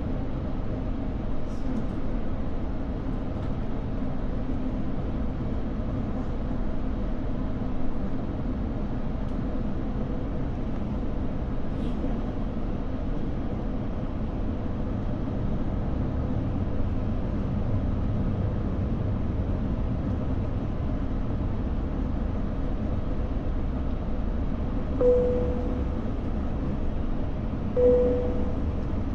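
Steady low rumble of a jet airliner's cabin as it taxis before takeoff, with a few faint clicks. Near the end, two short single-pitched chimes sound about three seconds apart, the cabin signal before a takeoff announcement.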